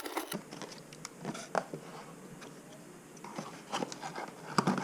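Handling noise from unpacking a foam cannon: scattered small clicks, taps and rustles of plastic parts and packaging, coming thicker near the end.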